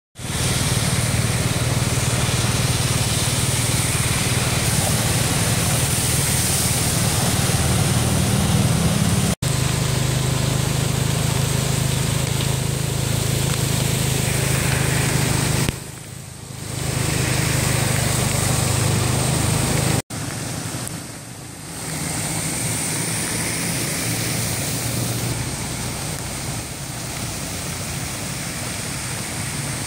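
Traffic driving through floodwater on a flooded road: engines running and tyres splashing through water over a steady rushing noise. The sound changes abruptly twice, about nine and twenty seconds in.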